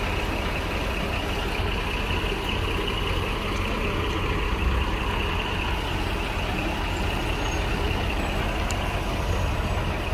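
Heavy crane truck's diesel engine running steadily: a continuous low rumble with a steady hiss above it.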